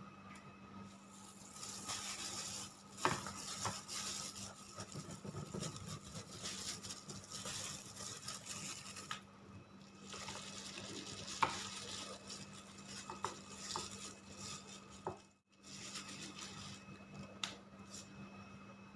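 Kitchen food preparation: a rough scraping hiss in long stretches, broken by a few sharp clicks of utensils against a bowl or pan.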